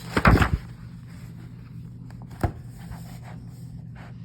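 Paper rustle and soft thump as a picture book's page is turned, followed about two seconds later by a single sharp click, over a steady low hum.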